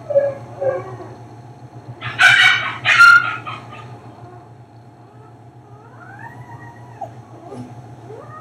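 Husky whimpering and crying during whelping: short squeaky whimpers, two loud shrill cries about two and three seconds in, then softer whines that rise and fall near the end. A steady low hum runs underneath.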